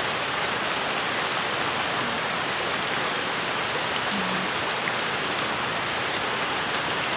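Rain pouring steadily on trees and leaf litter: an even, dense hiss.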